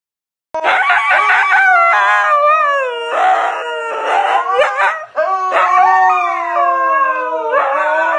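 Dog howling: long, wavering howls that rise and fall in pitch, with a short break about five seconds in.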